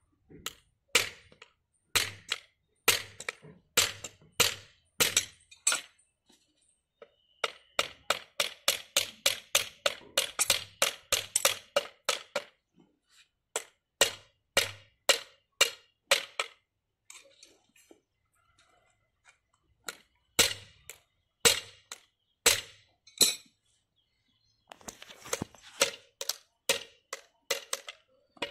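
A hammer nailing iron shoes onto a cattle's cloven hooves: sharp metallic strikes, about one a second at first, then in quick runs of about four a second, broken by pauses of a few seconds.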